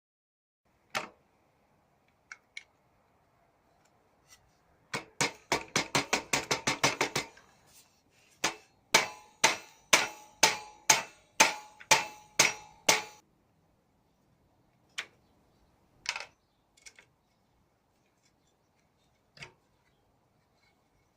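Hammer striking metal while working a handcycle's crank bearing. First comes a quick run of about a dozen light taps, then about nine heavier, evenly spaced blows, about two a second, with a ringing note, then a few scattered single knocks.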